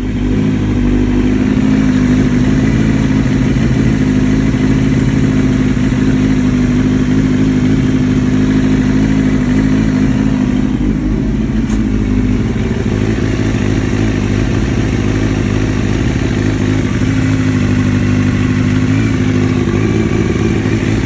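Kawasaki ZX-9R inline-four motorcycle engine idling steadily with its exhaust down pipe refitted on new copper gaskets. There is no blowing or ticking from the manifold joints, which the owner takes to mean the leak is cured.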